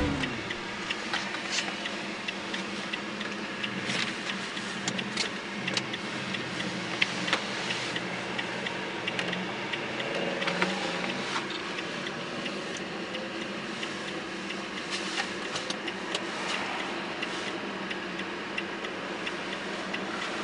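Steady road and tyre noise heard inside a car driving on a snowy road, with scattered sharp clicks and ticks throughout.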